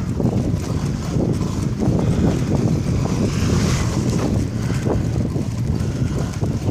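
Wind buffeting the microphone of a camera carried on a moving bicycle, over a steady low rumble and rattle from the tyres on brick paving.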